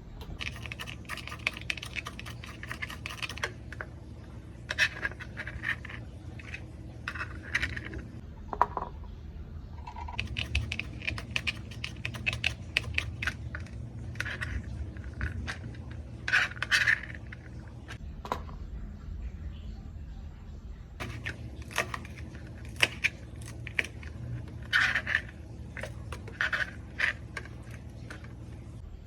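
Kitchen utensils scraping and clicking during food preparation, in irregular bursts over a low steady hum.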